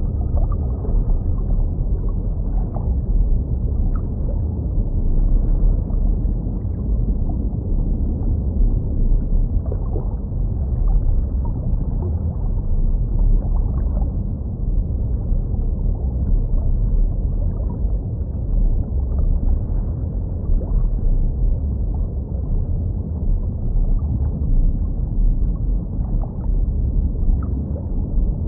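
Underwater ambience: a steady, muffled low rumble with faint scattered bubbly ticks.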